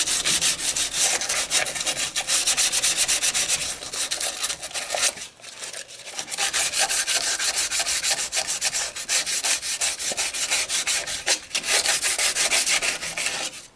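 Hand sanding with 150-grit sandpaper on the edge of a metal pipe piece, in quick back-and-forth scratchy strokes, pausing briefly about five seconds in.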